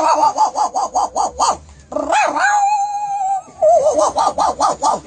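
A person imitating a dog with the voice: a rapid string of short yips, about seven a second, then one long held whine, then more quick yips.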